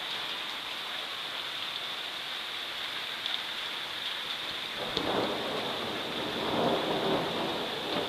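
Steady rain hissing, and about five seconds in a roll of thunder rumbles in, swelling towards the end.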